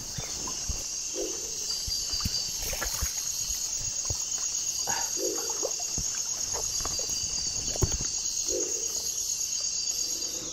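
A steady, high insect drone like a cricket chorus, with scattered small splashes and knocks of hands dipping into and scooping up stream water.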